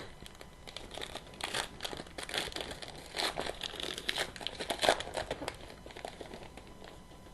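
Trading card pack wrapper being torn open and crumpled by hand: an irregular crinkling and crackling that is busiest in the middle and dies down near the end.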